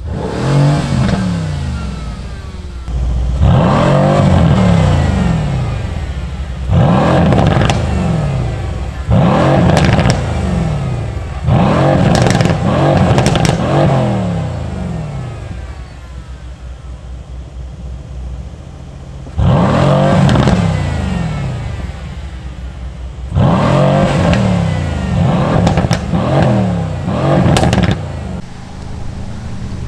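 Mercedes-AMG C63 S twin-turbo V8 with flap-controlled exhaust, revved in about ten sharp throttle blips while standing. Each blip falls back toward idle with a string of crackles and pops on the overrun, and there is a quieter idling stretch in the middle.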